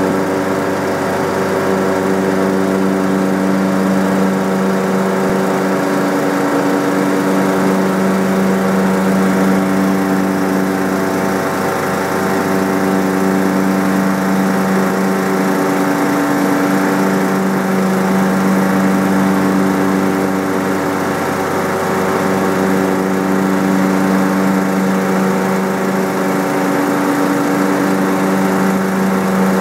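A small engine running steadily at one even pitch throughout.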